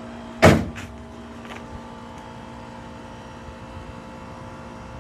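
A single loud thump about half a second in, followed by two lighter clicks, over a steady hum.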